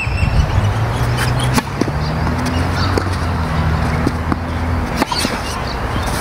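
Strong wind rumbling on the microphone under a steady low hum, with two sharp knocks of a tennis ball being struck, about a second and a half in and again near the end.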